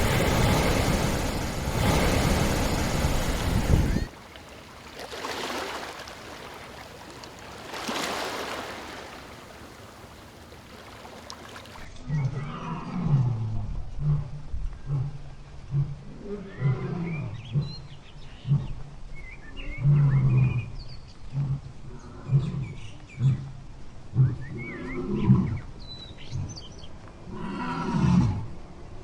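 Animal sounds in several clips. A loud noisy stretch gives way about four seconds in to quieter breathy calls, and from about twelve seconds on comes a long run of short, low, pitched calls repeating about once or twice a second.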